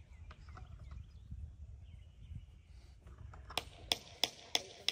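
A low steady rumble, then from just past the middle a run of sharp knocks, about three a second, like metal being struck while a gate is fitted to its post.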